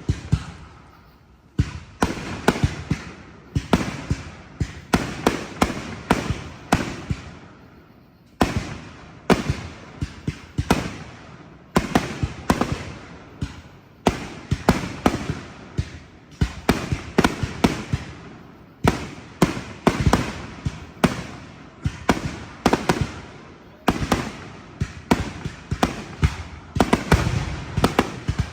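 Fireworks display: volleys of sharp bangs and crackling reports in quick succession, each volley trailing off in echo, going on without a break.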